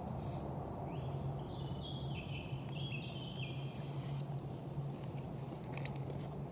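Steady low background noise with a low hum, and a small bird singing one short phrase of high, stepped notes starting about a second in and lasting about three seconds. A few faint clicks near the end.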